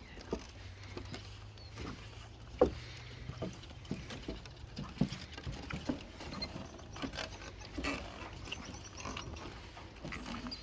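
Lake water lapping at the shore, making irregular small slaps and knocks, with a faint low hum in the first few seconds.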